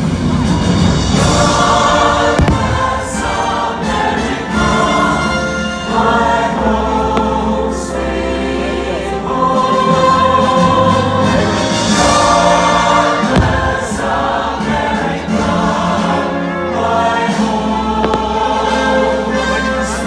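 Choir singing with orchestral music from a fireworks show's soundtrack over loudspeakers, with a few short sharp thumps mixed in.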